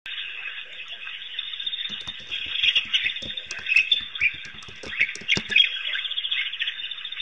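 Dense chorus of bird chirps and calls. A run of short, dull knocks sounds from about two seconds in until just past five seconds.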